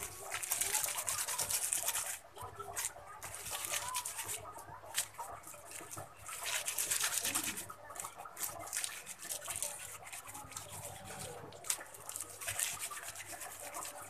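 Clear plastic bag crinkling and rustling in uneven bursts as hands squeeze and knead it, crushing the bait ingredients inside.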